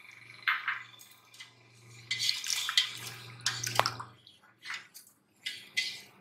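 Milk sharbat with soaked basil seeds being stirred in a steel pot with a plastic spoon: irregular swishing and sloshing of the liquid, with the spoon striking the pot now and then.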